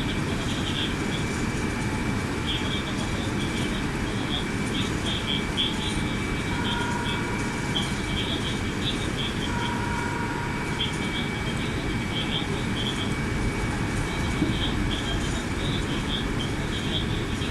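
Meitetsu 2000 series μSKY electric train running, heard from on board: a steady rumble of wheels on rail, with faint high chirping throughout. Two brief tones come about a third of the way in and again a few seconds later.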